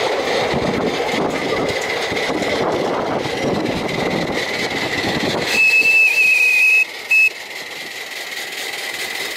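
Ride-on miniature railway train running along the track with a steady rumble of its wheels, then a whistle sounds about five and a half seconds in: one long high blast and a short second toot.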